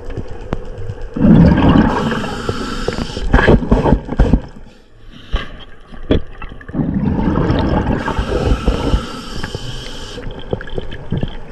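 Underwater water noise, swishing and gurgling around the camera in two surges with a quieter lull between, with scattered sharp clicks.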